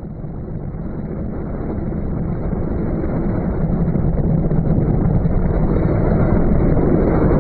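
Strong wind buffeting the microphone on a boat in heavy seas, a dense low rumble with no clear tone. It fades in and grows louder over the first few seconds, then holds steady.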